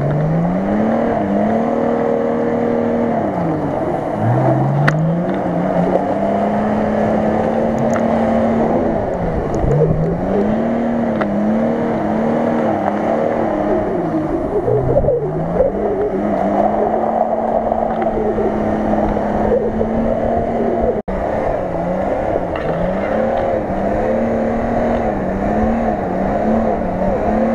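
Nissan Patrol off-roader's engine revving hard again and again as it churns through deep mud ruts with its wheels spinning: the revs climb, hold high for a few seconds, drop and climb again many times. The sound cuts out for an instant about 21 seconds in.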